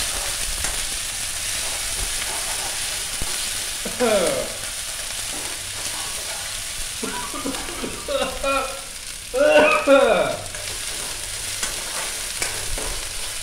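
Onion, dried red chilli paste and ginger-garlic paste sizzling in hot oil in a steel kadai, the masala base being briefly fried, while a metal ladle stirs it. A few louder scrapes of the ladle against the pan come about four, eight and ten seconds in.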